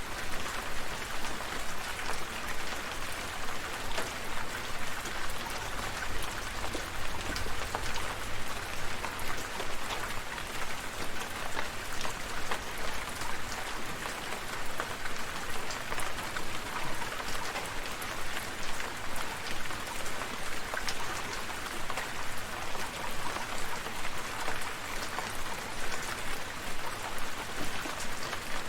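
Steady rain falling, with many close drops pattering on surfaces among the general hiss of the downpour.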